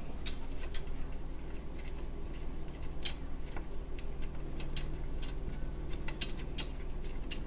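Socket ratchet clicking in short, irregular strokes as the strut tower brace nuts are snugged down, over a steady low hum.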